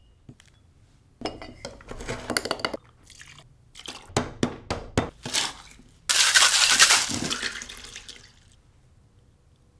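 Cocktail being made in a stainless steel shaker tin: scattered clinks and knocks as ingredients go in and liquid is poured, then about six seconds in a loud rush of crushed ice and drink pouring out of the tin into a glass mason jar, fading out over about two seconds.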